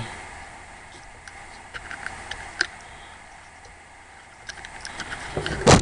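Small scattered clicks from a Glock pistol's trigger assembly and trigger connector being handled and turned by hand, with one much louder sharp click near the end.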